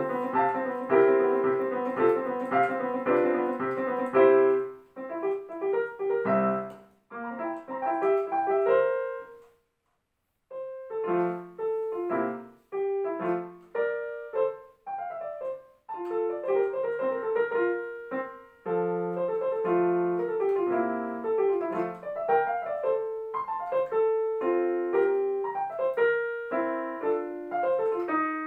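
Digital piano playing classical solo music: dense, steady chords for the first few seconds, then sparser phrases, a brief complete stop about ten seconds in, and the playing resumes with running notes to the end.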